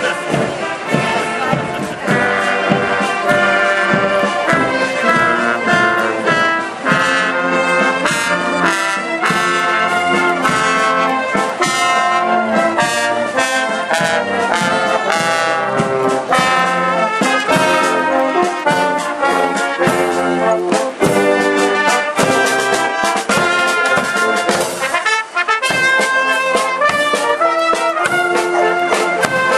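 A marching brass band playing a tune, trumpets and tubas sounding together without a break.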